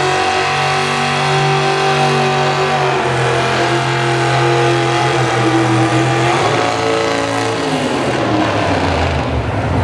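V-8 pulling tractor engine running hard under load while dragging a weight-transfer sled, its pitch stepping down about three seconds in and again near eight seconds, after which the engine note falls away.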